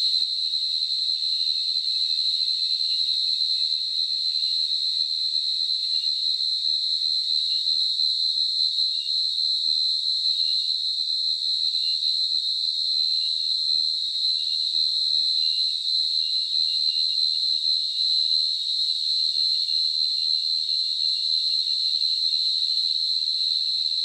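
Field cricket calling: an unbroken, high-pitched trill held at one steady pitch, made by the male rubbing its forewings together.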